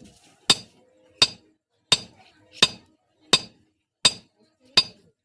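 Blacksmith's hammer striking steel on an anvil while forging a chisel: seven evenly spaced, ringing blows, a little under one a second.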